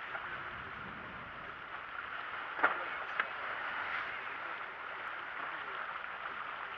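Steady rush of sea water and wind past a sailing yacht under way, with two sharp knocks about two and a half and three seconds in.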